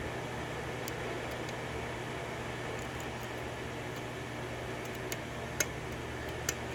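Faint, scattered metallic clicks of a lock pick and tension wrench working the pins of a 6-pin DOM pin-tumbler lock, the sharpest about five and a half seconds in, over a steady background hum.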